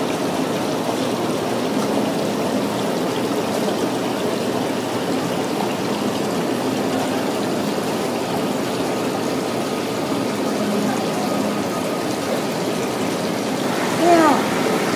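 Steady running and trickling water in a live seafood tank holding king crabs, with faint market chatter. Near the end comes a brief sliding, pitched sound.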